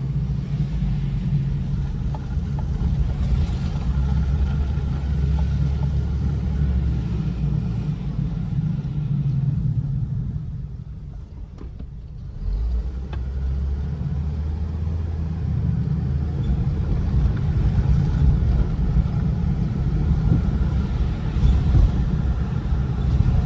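2008 Hummer H3 being driven, a steady low engine and road rumble; the rumble drops for a couple of seconds about ten seconds in, then picks up again. The truck is running normally now that its four-wheel-drive lock is switched off, no longer binding in the turn.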